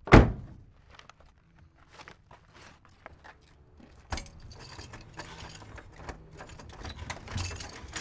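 A classic car's door slams shut with a heavy thunk, followed by a few soft taps. About four seconds in, a click and then keys jangling and rattling at a door lock until near the end.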